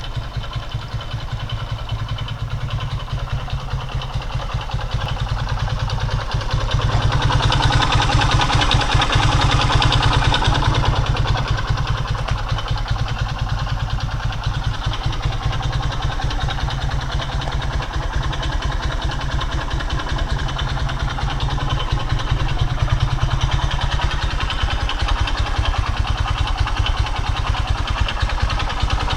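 Skymoto Pegas 110's single-cylinder 110 cc four-stroke engine running at idle with a fast, steady knocking, which the owner takes for a connecting-rod knock. The revs rise a little about seven seconds in and settle back by about twelve seconds.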